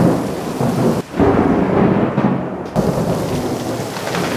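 Heavy rain pouring down in a thunderstorm, with thunder rumbling through it.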